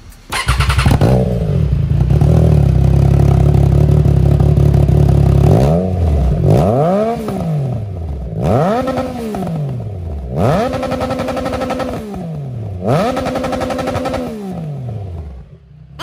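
Harley-Davidson FXDR 114's Milwaukee-Eight V-twin, fitted with a newly replaced exhaust pipe, starting up about half a second in. It runs loud and steady, then from about six seconds in is blipped four or five times, each rev rising and falling back to idle.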